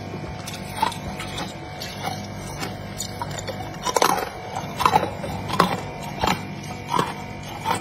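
Freezer frost being crunched in the mouth: sharp crackly chewing crunches that grow stronger and more regular from about four seconds in, roughly one and a half a second, over a steady low hum.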